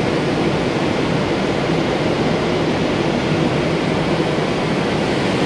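Steady, loud mechanical noise of large 100 HP vertical electric water pumps running in a pump house, an even rushing hum with no let-up.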